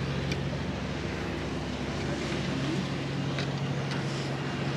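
A steady, low engine drone that holds an even hum throughout, with a few faint ticks over it.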